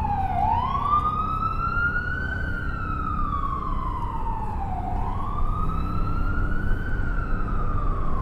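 Emergency vehicle siren in wail mode. Its pitch rises quickly, then falls slowly, through about two cycles, over a steady low rumble of city background noise.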